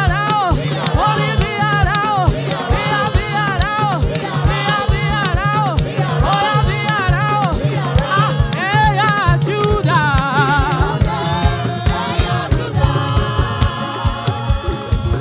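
Church choir singing gospel praise over a steady drum beat, the singing giving way to held keyboard-like chords after about ten seconds.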